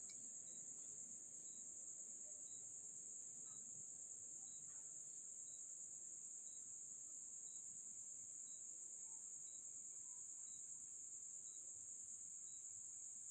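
Steady high-pitched insect trill with a faint, regular short pip about once a second, at a very low level.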